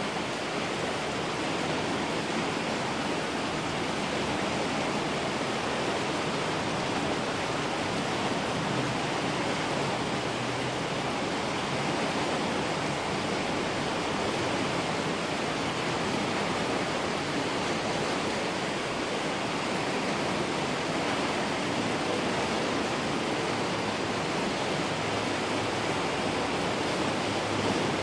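Creek running high at the start of a flood: a steady, unbroken rush of water.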